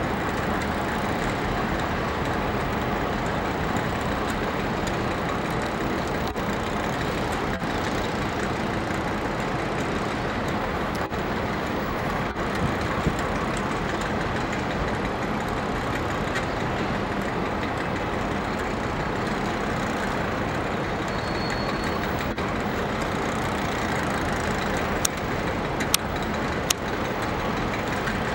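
Steady rushing noise of a burst water pipe's jet spraying over the line, mixed with a DL-class diesel locomotive running as it hauls a freight train slowly past. A few sharp clicks near the end.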